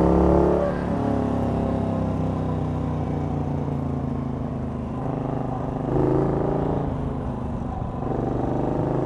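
Morgan 3 Wheeler's V-twin engine running under way on track. It is loud at first and the note drops about a second in as the throttle comes off, then swells again about six seconds in.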